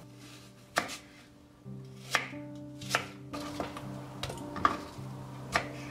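Ceramic knife cutting apple chunks on a camphor-wood cutting board: about five sharp, unevenly spaced knocks of the blade meeting the board.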